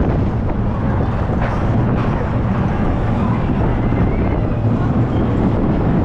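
Wind rushing over the microphone of a camera riding in the front seat of a moving steel roller coaster, over the steady rumble of the train running along the track.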